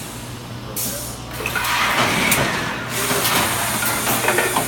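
Thermoforming machine running with a steady hum, broken by several loud bursts of air hiss. The longest lasts over a second, starting about a second and a half in.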